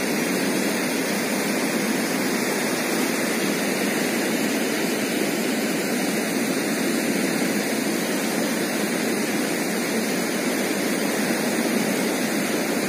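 Steady rush of turbulent water pouring through a dam gate at high water, an even roar with no breaks.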